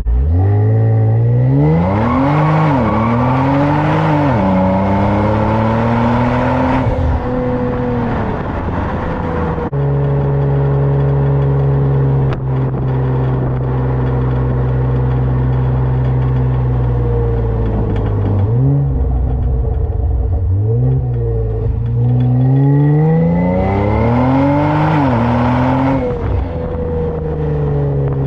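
Kia Stinger with a custom Y-pipe exhaust accelerating hard twice, its engine note climbing through the gears with a quick drop at each upshift. Between the two pulls it cruises steadily.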